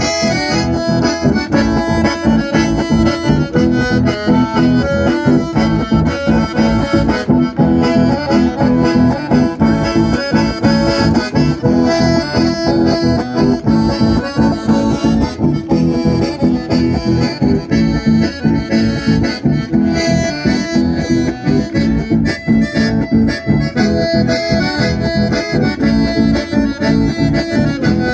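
Live chamamé played on button accordions with guitar accompaniment, instrumental with no singing, amplified through PA speakers at a steady dance pulse.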